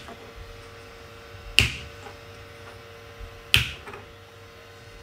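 Two sharp snaps about two seconds apart: 3D-printed crankshaft parts being popped off a textured PEI print bed.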